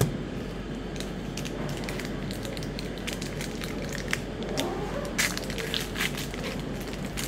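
Crinkling and tearing of a Magic: The Gathering booster pack wrapper being opened by hand, in irregular crackles that are loudest about five seconds in.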